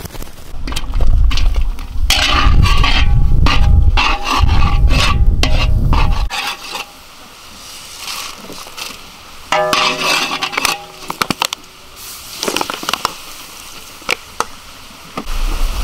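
Cooking utensils scraping and clattering, with a heavy low rumble for the first six seconds, then quieter scattered clicks and scrapes.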